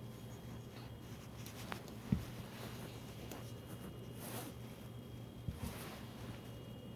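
Light handling noises, a few short knocks and some scraping or rustling, over a steady low hum, as a metal tack-welding jig and plates are handled.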